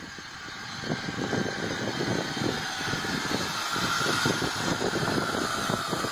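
A motor running, with a steady high whine that rises slightly in pitch toward the end, over an irregular low rumble.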